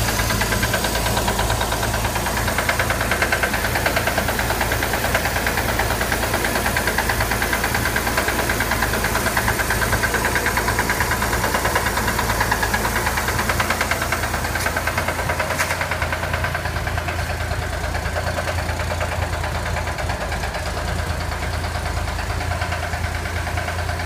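Chevrolet Corvair air-cooled flat-six engine running with a steady, fast, rhythmic knock, which the owner wonders may be rod knock.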